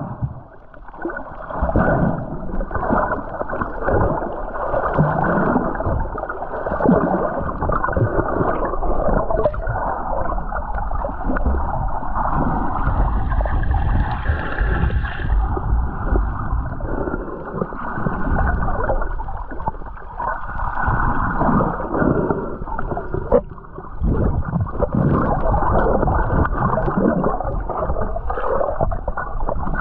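Water sloshing and gurgling around a camera held just under the surface, heard muffled underwater, with one sharp click about three quarters of the way in.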